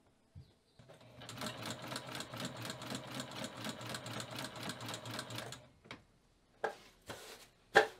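White domestic electric sewing machine stitching through a piece of leather, in a steady run of about six stitches a second for some five seconds before it stops. A few short, sharp clicks follow, the loudest just before the end.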